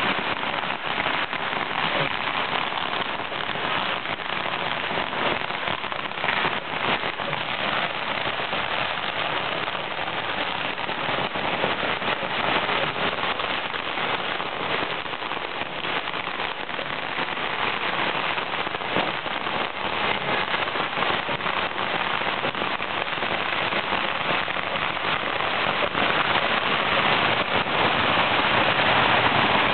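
Ground firecrackers going off in rapid succession, making a dense continuous crackle like heavy rain that grows a little louder near the end.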